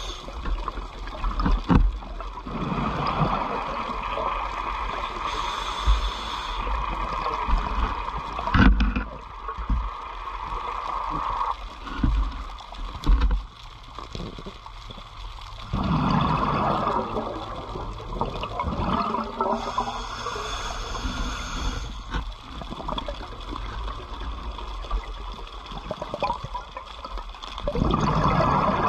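Underwater sound of a scuba diver's breathing through the regulator: long bursts of exhaled bubbles gurgling and hissing every several seconds, with quieter stretches between. A few short low knocks are heard along the way.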